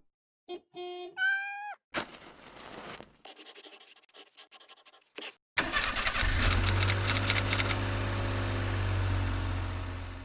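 Suzuki Jimny engine starting with a sudden catch about five and a half seconds in, then running at a steady idle. Before it come a few clicks and some short rising chirps.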